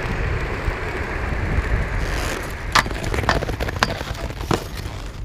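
Aggressive inline skates rolling on asphalt, then several sharp metallic clacks as the skates hit and grind along a metal handrail during a combination of grinds.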